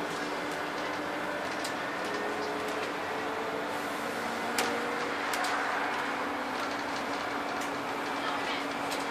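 Scania N230UD double-decker bus on the move, heard from inside on the upper deck: its engine and driveline running with a steady low whine, and interior panels and fittings rattling with small clicks. There is one sharper click about halfway through.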